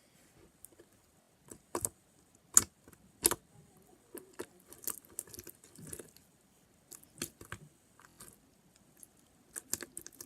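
Sticky homemade slime being kneaded by hand with freshly added activator, giving irregular wet clicks and small pops as it pulls off the fingers; the two sharpest pops come about two and a half and three seconds in.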